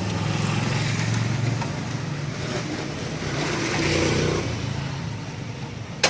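A motorcycle engine running, swelling in level twice, with a single sharp click near the end.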